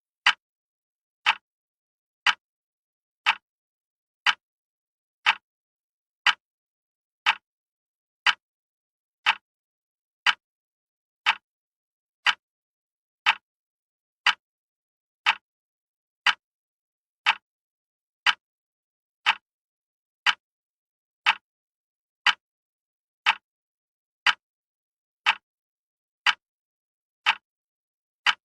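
Wall clock ticking: one sharp tick each second, evenly spaced, with silence between the ticks.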